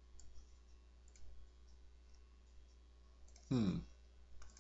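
A few faint computer mouse clicks, spaced apart, over a low steady hum.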